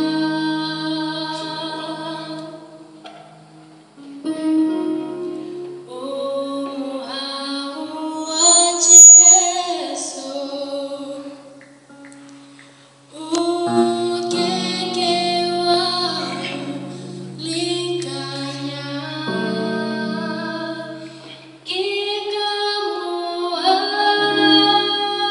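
A vocal group sings in several-part harmony, with female voices to the fore. The song moves in long held phrases broken by short pauses.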